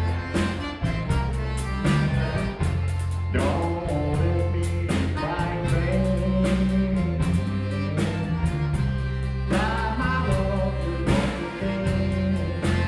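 Live Cajun band playing a song on accordion, fiddle, electric bass and drums, with a steady drum beat under a moving bass line.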